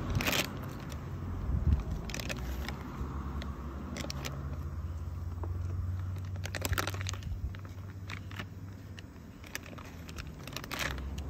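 Thin plastic bag rustling and crinkling in several short bursts as it is handled, over a steady low hum.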